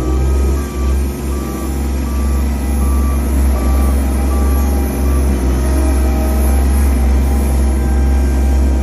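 Engine of a small ride-on twin-drum roller running steadily as it travels across the sand. A reversing alarm beeps about one and a half times a second and stops around five seconds in.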